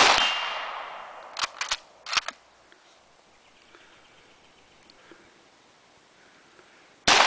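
Two shots from a Type 38 Arisaka bolt-action rifle in 6.5x50SR, about seven seconds apart, one at the start and one near the end. Each shot's echo trails off over a second or so, with a faint ring from the struck steel gong. A second or so after the first shot the bolt is worked with a few quick metallic clacks.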